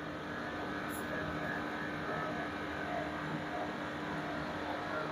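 Air conditioner unit running steadily with its newly replaced fan motor and contactor, a steady airy rush of moving air with a low hum under it.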